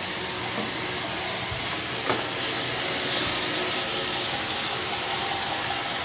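Roomba robot vacuum running across a hardwood floor: a steady, even hiss with no change in pitch.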